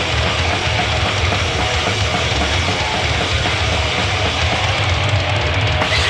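Live grindcore-thrash punk band playing loud: distorted guitars, bass and a drum kit in a dense, unbroken wall of sound with a heavy low end.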